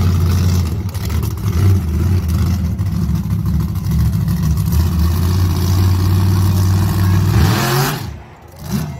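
Monster truck engine running hard with a deep, steady drone, then revving up quickly near the end before cutting back sharply.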